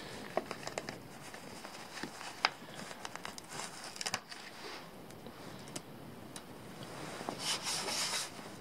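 Hands rubbing and pressing a vinyl sticker onto an ATV's hard plastic body panel, with scattered small clicks and taps of fingers on the plastic. A louder stretch of rubbing comes near the end.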